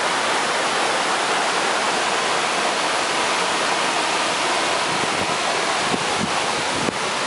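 Steady rush of water from a hot-spring cascade tumbling over rocks.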